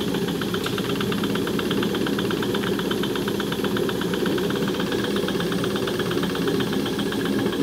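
Small toy live-steam engine running steadily, chugging with a fast, even beat of exhaust puffs while it drives a string-belt pulley.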